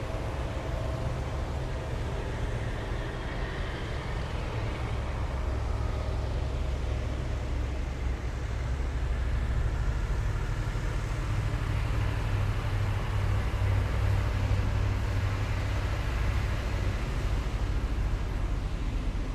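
Heavy military vehicles driving past in a column, their engines rumbling low and steady. The sound grows louder about halfway through as vehicles come closer.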